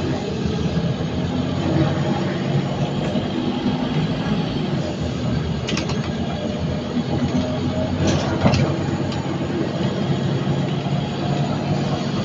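Scania N230UD Omnicity bus's diesel engine running steadily under way, with a faint high turbo whistle above the rumble. A few sharp rattles or knocks come about six seconds in and again around eight seconds.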